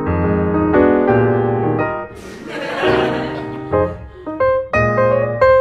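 Background piano music playing a melody of separate notes. About two seconds in, a brief hissing noise lasting about a second sits over the music.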